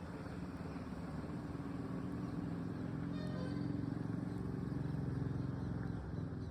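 A low engine hum, typical of a vehicle, growing louder and dropping off about six seconds in, with a short high-pitched call about three seconds in.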